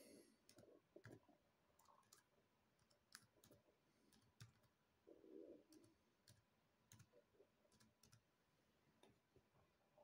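Faint, irregular clicking of a Dell Latitude E6420 laptop's keys as an email address is typed one key at a time.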